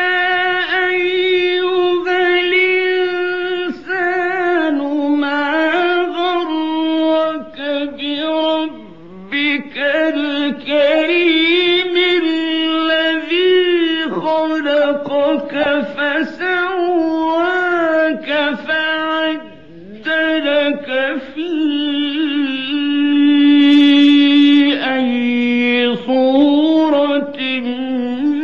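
Male qari chanting Quran recitation in the melodic mujawwad style: a high voice drawing out long ornamented phrases with wavering runs. He pauses briefly for breath twice and holds one long, loud note near the end.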